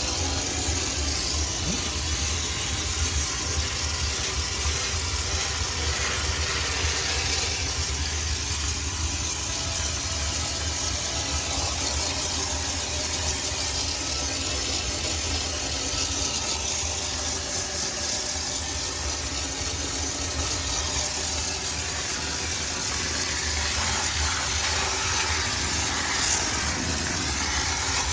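High-pressure steam cleaner jetting steam with a steady, unbroken hiss over a low machine hum, used to sterilize a laundromat washing machine.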